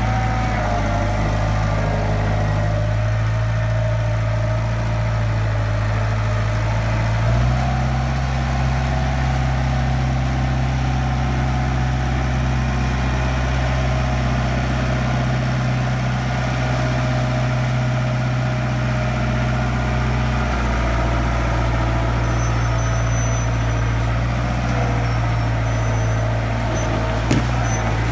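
International Harvester backhoe's diesel engine running steadily. It picks up speed about a quarter of the way in and drops back around three quarters through. A single sharp knock comes near the end.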